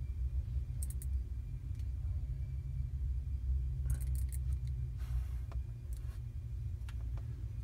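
Steady low hum of room noise, with a few faint short clicks and a brief rustle about five seconds in.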